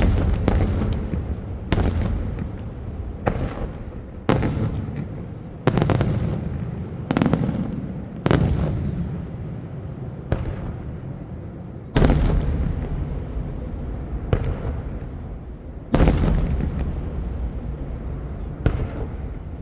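Daytime fireworks display: a rapid series of aerial shell bursts, sharp bangs about one every second or two, each trailing off in a long echo, with the heaviest blasts in the second half.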